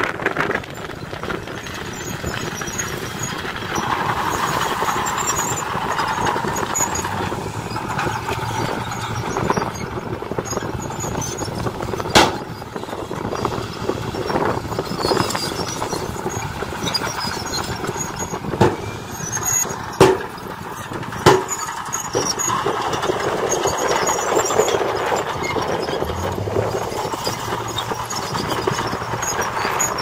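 Diesel dump trucks running while tipping soil, their engines and hydraulic hoists working as the beds are raised. Four sharp metal knocks cut through in the second half, the loudest about twelve seconds in and three more close together a little later.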